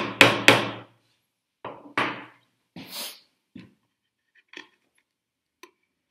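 A chisel struck down on its line while chopping a hinge mortise in ash: a quick run of sharp knocks in the first second, then two softer knocks and a short scrape around the middle, and a few faint ticks of the chisel being set for paring near the end.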